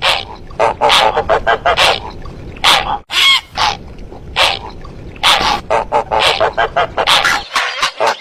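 Recorded calls of herons and zarki birds used as a hunting lure: a fast series of short, harsh calls, several a second, with a brief break about three seconds in.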